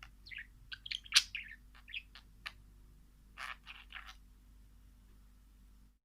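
Birds chirping: a quick run of short, high calls, with the loudest chirp about a second in. The calls stop after about four seconds.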